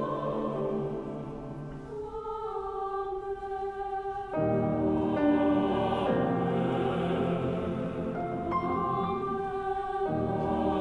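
Mixed chamber choir singing slow, sustained chords. About two seconds in the texture thins and quietens to the upper voices, then the full choir with low voices comes back in louder about four seconds in.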